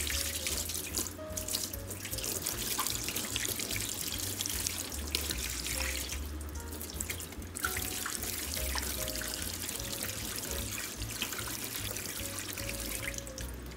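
Kitchen tap running into a stainless steel sink while squid is rinsed by hand under the stream, the splash changing as the hands move in and out of the water.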